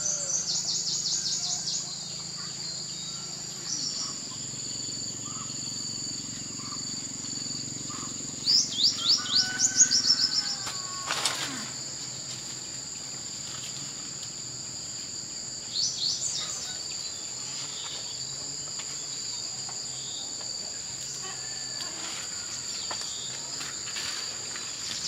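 Insects keep up a steady high-pitched drone on two tones, while a songbird sings short phrases of rapid repeated high notes four times, the loudest about nine seconds in. A single sharp click comes about eleven seconds in.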